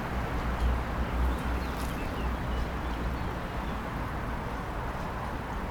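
Steady outdoor noise with a low rumble, and a few faint high chirps about two seconds in.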